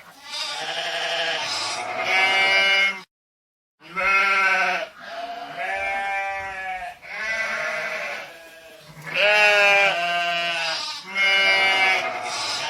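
An animal bleating over and over: loud, wavering calls about a second or so each, with a brief break about three seconds in.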